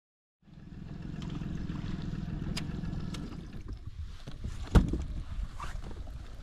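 Wind buffeting the microphone and water lapping against a small fishing boat, a steady low rumble, with a few light clicks and one sharp knock against the boat a little before the end.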